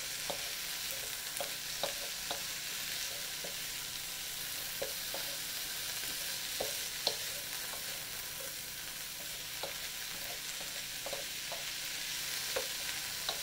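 Broccoli sizzling steadily in hot oil in an electric wok, stirred with a wooden spoon that scrapes and knocks lightly against the pan now and then.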